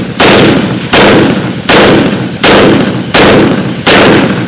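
MAS 49/56 semi-automatic rifle firing six shots in steady succession, about three-quarters of a second apart, each with a fading echo. A steady hiss of compressed air blowing sand over the rifle runs underneath; the rifle keeps cycling through the dust.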